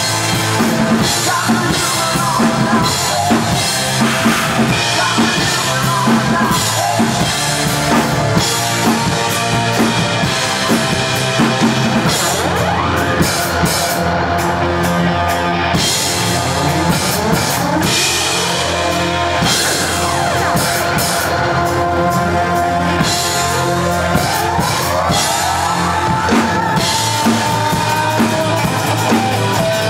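Ludwig drum kit played along to a recorded rock song: a steady beat on bass drum, snare and cymbals over the band's sustained notes, with sliding notes in the second half.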